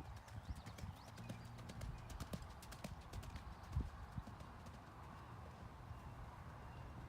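A horse's hooves clip-clopping on hard ground, a quick run of sharp clicks that thins out after about three and a half seconds, with a few duller thuds.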